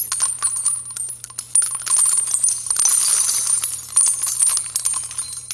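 Jingling, tinkling sound effect: a dense run of small, bright, high clinks and jingles.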